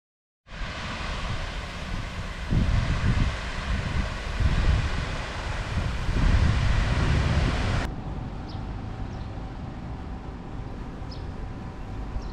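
Wind rushing over the microphone, with heavy, uneven low rumbles of buffeting from about two seconds in; about eight seconds in it changes abruptly to a quieter outdoor background with a few faint chirps.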